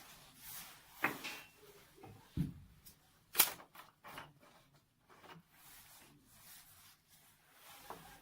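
Handling noises of plastic bottles, caps and tubing: a scatter of separate clicks and knocks, the loudest a sharp click about three and a half seconds in, just after a duller thump.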